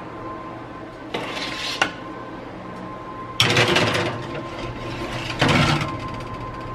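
Metal sheet pan scraping across a wire oven rack as it is slid into the oven, in three scraping pushes with a sharp click near the end of the first; the middle push is the loudest.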